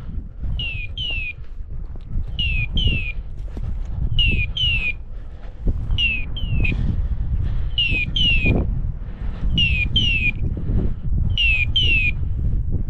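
Hunting dog's electronic beeper collar giving a pair of short falling beeps about every two seconds, with a steady low rustle of walking through dry scrub underneath.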